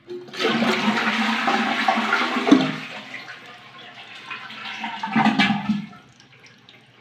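Toilet flushing: a loud rush of water out of the cistern for about three seconds that then dies down, with a second short surge about five seconds in.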